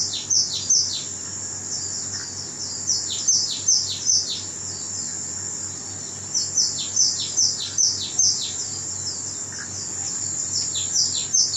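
Small birds chirping in a bird-feeder video, heard through the TV's speakers: several bouts of quick, downward-sweeping chirps over a steady high-pitched hiss.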